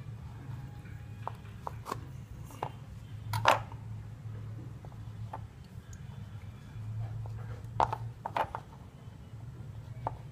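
Kitchen knife cutting through a peanut-filled Cadbury Fuse chocolate bar on a hard surface: scattered small clicks and taps, with a sharper tap about three and a half seconds in and two more around eight seconds in. A low steady hum runs underneath.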